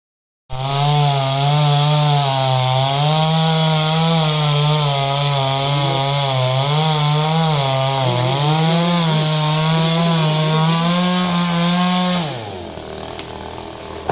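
Two-stroke chainsaw running at high speed, cutting into wood, its pitch wavering as the chain loads in the cut. About twelve seconds in the engine drops in pitch and quietens as the throttle is released.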